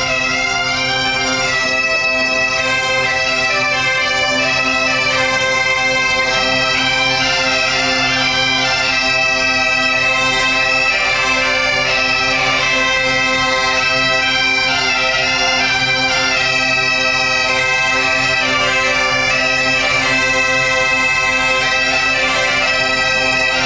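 Bagpipes playing a tune: a melody on the chanter over steady, unbroken drones.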